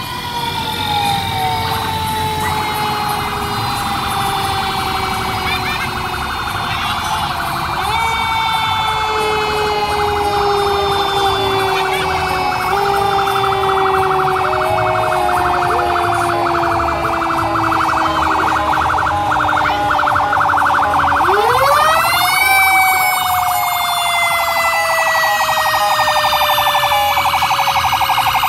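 Fire truck sirens: a siren wail sliding slowly down in pitch and brought back up a few times, most sharply about three-quarters of the way through. Under it runs a second, fast-pulsing siren tone that stops near the last rise.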